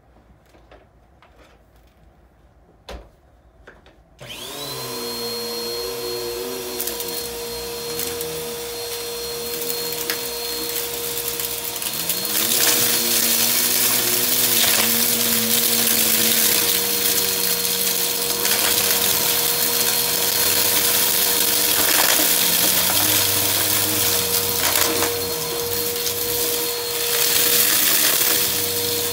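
A Bissell PowerForce upright vacuum cleaner is switched on about four seconds in and runs with a steady motor whine. From about twelve seconds in it gets louder, with crackling and rattling as it sucks crunchy debris and fluff off the carpet.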